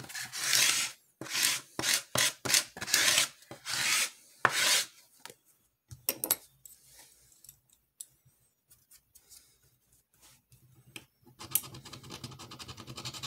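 Scratch-off lottery tickets being rubbed and scraped: a run of rasping strokes in the first five seconds, a near-quiet stretch, then fine, rapid scratching of a ticket's coating with a metal edge from about eleven seconds on.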